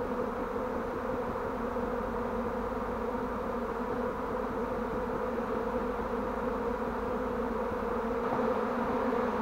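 A swarm of honeybees in the air: a steady, dense buzzing hum of many bees flying.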